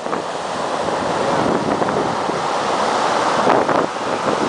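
Heavy storm surf breaking and rushing over rocks and sand, a continuous churning roar, with wind buffeting the microphone. A louder burst comes about three and a half seconds in.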